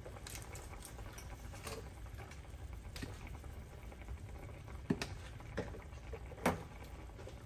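A pot of water with carrots bubbling on an electric stove, with a few light clicks and knocks of a spoon and utensils.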